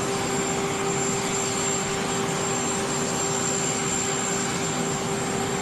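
Jet aircraft noise on an airfield apron: a steady rush with a constant low hum and a thin high whine that do not change.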